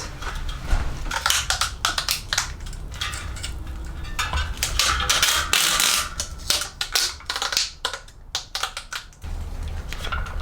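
Old duct tape being peeled and scraped out of a mountain bike rim bed, where a melted section sticks: irregular crackling rips and clicks, with a longer rasping tear about halfway through.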